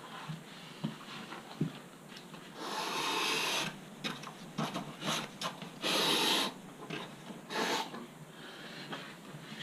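Fine sandpaper rubbed over foam in a few separate strokes, the longest lasting about a second, with small handling clicks between them.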